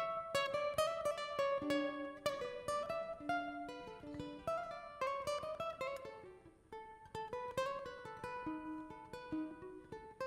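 Braguinha, the small four-string Madeiran cordophone, played solo: a quick melodic line of sharply plucked notes.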